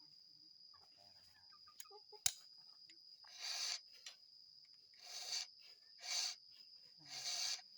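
File rasping across a chainsaw chain's cutter teeth in four one-way sharpening strokes about a second apart, the 'sreset sreset' of filing a chain. A single sharp click comes about two seconds in.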